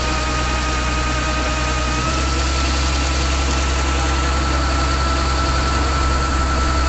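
Kubota Harvest King combine harvester's diesel engine running steadily while its unloading auger pours threshed paddy into a sack, a steady high whine over a low hum.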